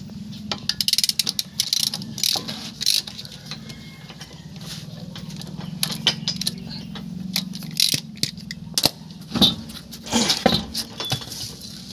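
Metallic clicks, clinks and rattles of lug nuts being undone from wheel studs with a ratchet and socket and handled, over a steady low hum.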